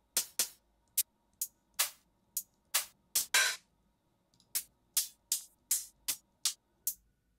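Closed hi-hat samples auditioned one after another: a string of short, crisp hi-hat ticks, irregularly spaced and differing in length and brightness from file to file, with a pause of about a second midway.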